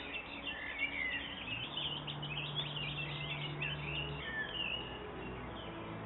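Small songbirds chirping and twittering in quick high notes, busiest in the first four seconds, over soft background music with low held notes.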